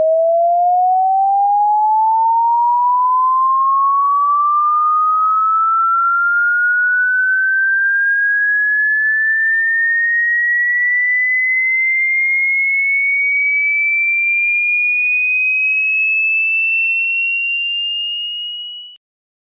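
A single pure electronic tone slowly sliding upward in pitch, from a mid tone to a high whistle, then fading out and stopping shortly before the end.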